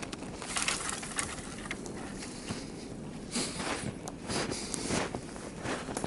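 Footsteps crunching through deep fresh snow, an uneven run of steps.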